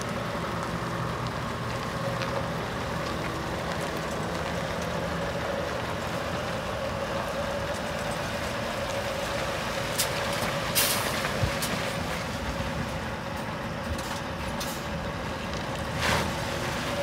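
Scania R580 truck's V8 diesel engine idling steadily, with a few short air hisses about ten, eleven and sixteen seconds in.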